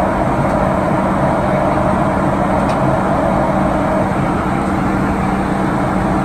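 Steady in-cabin noise of a Boeing 737-800 in flight on descent: the hum of its CFM56-7B turbofan engines mixed with the rush of airflow, with a steady low drone underneath.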